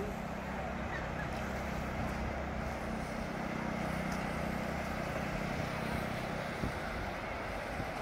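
Beach ambience: a steady hiss of surf and wind, with a low engine hum underneath that fades out after about six and a half seconds.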